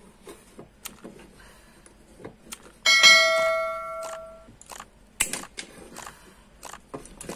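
A single bright bell ding rings about three seconds in and fades over about a second and a half, the notification-bell sound effect of a subscribe-button animation. Small clicks and taps from handling the wires and switch plates are heard around it.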